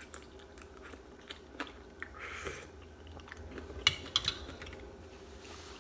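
A person eating vegetable soup from a wooden spoon: chewing and a slurp about two seconds in, with a few sharp clicks, the loudest two close together about four seconds in.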